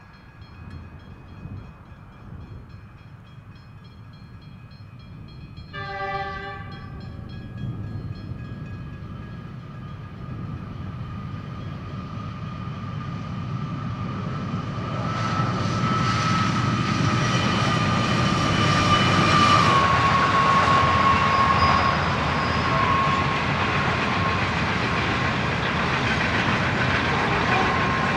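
Pacific National NR class GE diesel-electric locomotives approaching with a loaded steel train, giving a short horn blast about six seconds in. Engine and wheel noise then builds as they pass, with a whine that drops slightly in pitch as they go by. The steady rumble of the loaded steel wagons rolling past follows.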